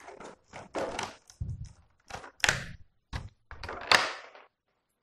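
Clear plastic packaging tray and a plastic radio-control transmitter being handled on a table: a run of short crinkles and knocks, the loudest about halfway through and near the end.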